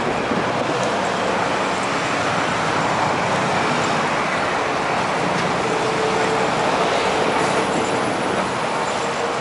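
Steady engine noise with no break, a faint held tone showing between about five and eight seconds in.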